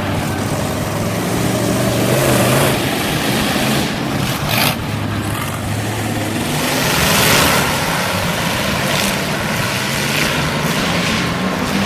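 Race car engines running as cars lap a dirt track, a steady engine drone shifting in pitch as the cars speed up and ease off. A short rush of noise comes about four and a half seconds in.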